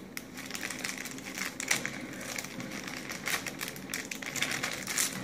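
Black foil blind bag crinkling and crackling irregularly as it is handled and pulled open by hand.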